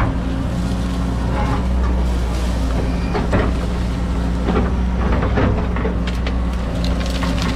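John Deere 130G excavator's diesel engine running steadily under load, with scattered sharp cracks and knocks from the machine working through trees and brush.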